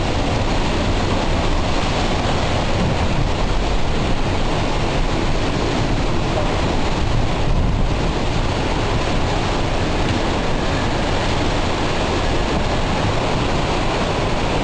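Hurricane wind and driving rain in a loud, steady rush, with the wind buffeting the microphone.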